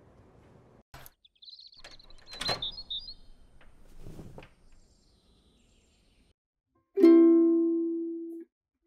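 Birds chirping briefly, with a click and then a thump as a door opens. About seven seconds in, a single ukulele chord is strummed and rings out for about a second and a half before cutting off suddenly.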